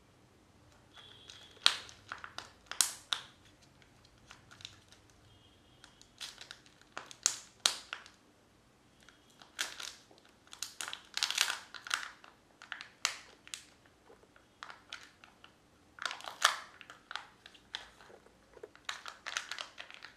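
Plastic-foil wrapper of a Kinder Joy egg crinkling and tearing as it is peeled off by hand. It comes as several short bursts of crackling with quiet pauses between them.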